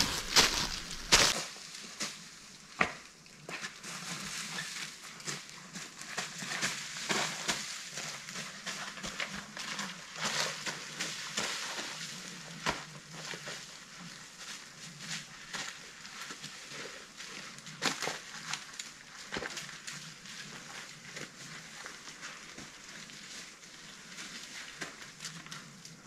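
Footsteps crunching irregularly through forest-floor litter while walking and climbing, with a few louder knocks in the first second or so.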